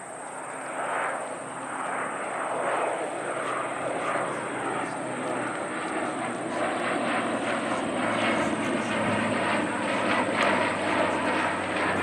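Twin-turboprop airliner climbing out overhead, its engine and propeller drone growing steadily louder, with a steady low hum under a broad rushing noise.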